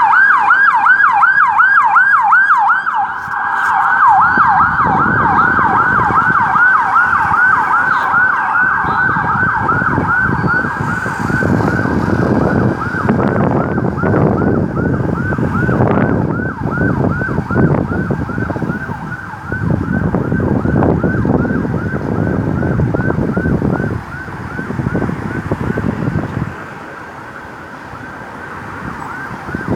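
Ambulance siren in fast yelp mode, a rapid up-and-down sweep several times a second, with road and engine noise rising beneath it from about four seconds in. The siren and traffic grow quieter near the end.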